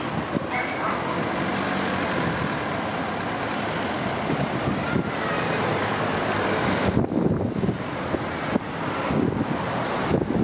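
Road traffic moving off across a level crossing as the barriers lift: car engines and tyres under a steady rush of wind on the microphone. About seven seconds in the wind rush drops away and the nearer cars pulling past stand out more clearly.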